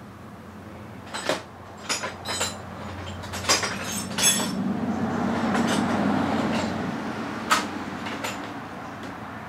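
A scatter of sharp knocks and clanks, several in the first half and one more near the end, over a low rumble that swells in the middle and then fades.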